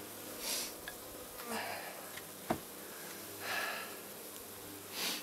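Honeybees buzzing steadily around an opened hive. Over the buzzing are four breathy sniffs or breaths close to the microphone, and a single sharp click about two and a half seconds in.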